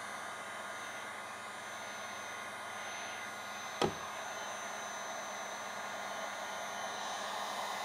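Handheld electric heat gun running steadily, its fan blowing hot air with a faint high whine, used to post-heat paint protection film on a car mirror. A single sharp knock about four seconds in.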